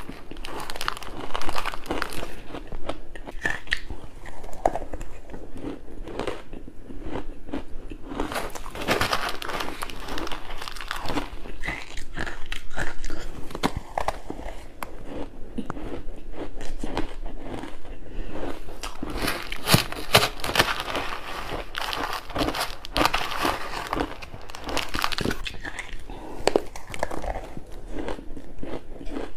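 A person biting and chewing crunchy pink ice close to the microphone: repeated clusters of sharp cracks and crunches as the ice breaks between the teeth.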